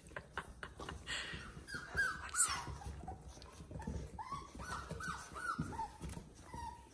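Cavalier King Charles Spaniel puppies yipping and whimpering at play: a string of short, high calls, each falling in pitch, coming most often in the second half.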